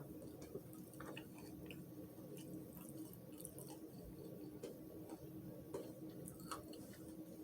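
Faint chewing with scattered small mouth clicks over a steady low hum.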